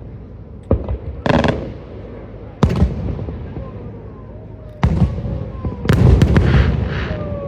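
Fireworks going off: sharp bangs every second or two, with a short crackling burst about a second in and a cluster of bangs around six seconds in.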